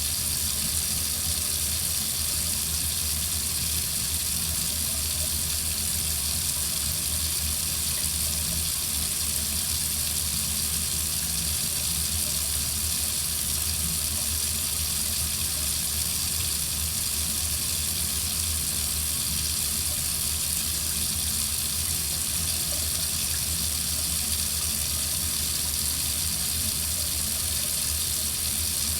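Water running steadily from a faucet in an even, unbroken stream.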